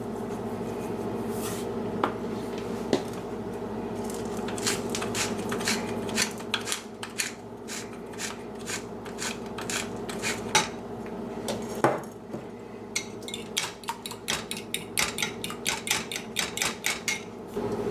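A utensil clicking against a bowl as the seasoned egg-and-milk mixture for quiche is stirred, the clicks coming irregularly at first and then in quick runs near the end.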